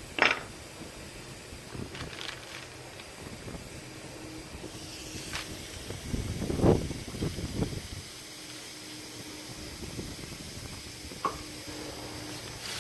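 Scattered knocks and clinks of hand tools on a car's rear suspension as a lower control arm is worked loose, a handful of separate strikes with a small cluster in the middle, over a faint steady hum.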